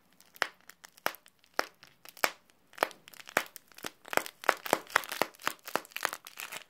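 Crinkly plastic snack-bar wrapper, stuffed to make a homemade squishy, crackling as it is squeezed in the hands: a "cracky" squishy. Single sharp crackles come about twice a second at first, then thicker and faster from about four seconds in.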